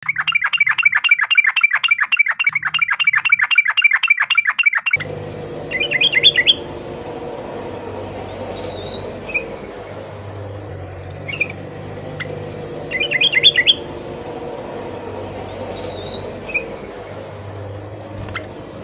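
Yellow-vented bulbul (trucukan) calling: first a fast, even run of repeated chattering notes, several a second. It breaks off suddenly into short chattering bursts and a few single call notes over a steady low hum.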